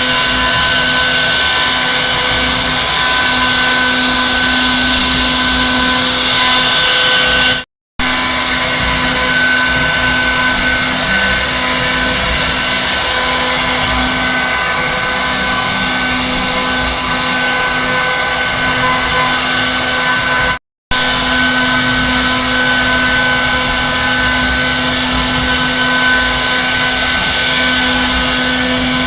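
CNC router spindle carving a 3D door design into wood: a steady whine over a hiss of cutting, dropping out briefly twice.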